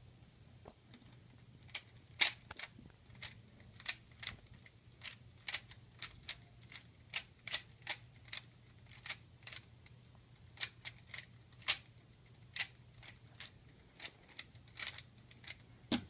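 Plastic 3x3x3 Rubik's cube being twisted by hand: irregular sharp clicks of the layers snapping round, roughly one to three a second.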